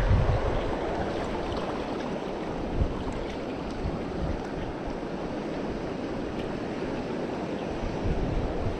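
Fast-flowing river water rushing past in a steady, even stream.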